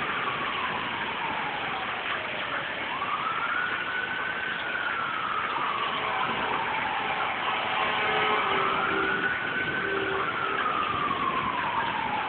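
A siren wailing, its pitch rising and falling in slow sweeps about every five seconds, over a steady hiss of heavy rain.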